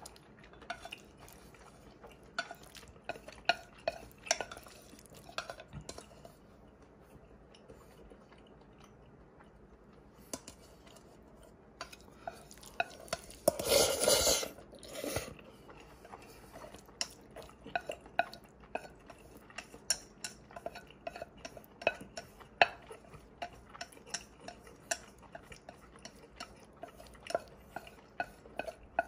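A utensil clinking and scraping against a stainless steel pot while scooping up the last black-bean sauce noodles: scattered sharp clicks, with one longer, louder burst about halfway through.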